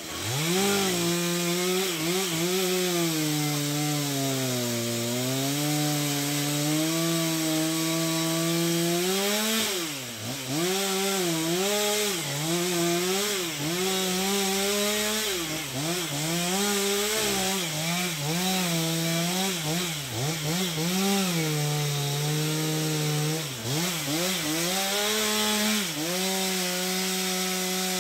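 Chainsaw running hard and cutting into black locust wood, its engine pitch sagging and picking back up many times as the saw loads in the cut and the throttle is eased and squeezed again. The dips come slowly in the first part and quicker and more often after about ten seconds. The saw cuts off at the very end.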